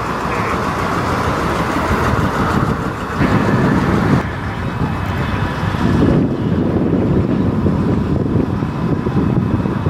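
Mid-1950s Ford F-100 pickup's engine rumbling as it drives slowly past. About four seconds in, the sound cuts abruptly to a steadier low rumble.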